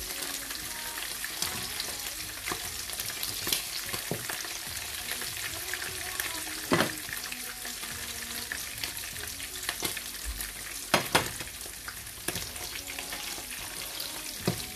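Chicken pieces sizzling in oil in a non-stick frying pan, stirred and turned with wooden utensils. Now and then the wood knocks sharply against the pan, twice in quick succession a little past the middle.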